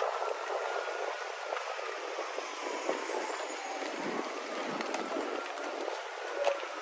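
Manhattan street ambience: a steady hiss of traffic, with a faint siren slowly wailing up and down in pitch.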